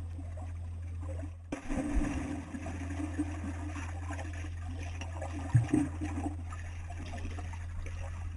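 Muffled underwater sound of water churning in a swimming pool as a dog paddles above, over a steady low hum, with a couple of brief low thuds.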